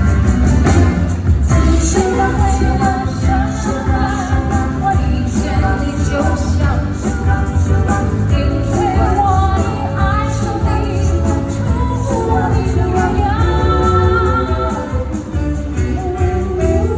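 Female vocal trio singing a melody, backed by a small jazz band of saxophone, piano, bass and drums playing live.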